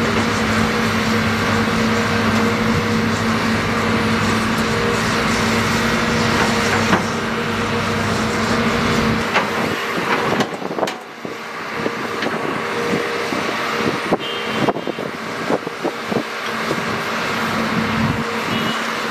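Shantui ME315 crawler excavator's diesel engine running steadily under load for about the first half. About nine seconds in the engine drone drops back and the bucket is heard working through wet soil and clods, with many short knocks and scrapes.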